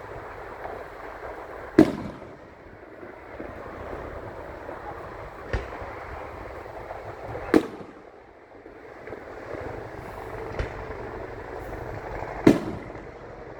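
Fireworks shells bursting overhead: five sharp bangs a few seconds apart, three of them loud (near two seconds in, about midway, and near the end) and two fainter, over a steady low background.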